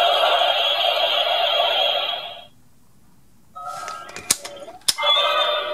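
Bandai DX Orb Ring toy playing a loud electronic sound effect through its small speaker, which stops about two and a half seconds in. After a short pause the toy starts up again, with two sharp plastic clicks as it is handled, and plays another sound effect near the end.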